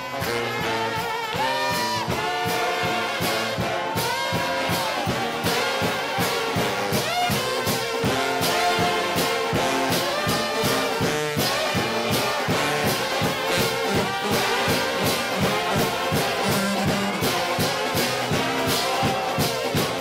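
A United House of Prayer trombone shout band, trombones and sousaphone, playing a fast gospel tune together, with sustained and sliding brass notes over a steady quick beat.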